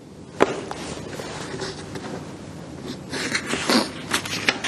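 Sheets of paper notes being handled on a lectern: a single sharp click about half a second in, then rustling and crinkling from about three seconds in.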